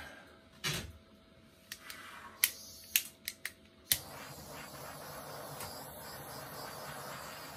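Handheld butane torch: several sharp clicks as it is handled and its igniter is worked, then from about four seconds in the steady hiss of the lit flame.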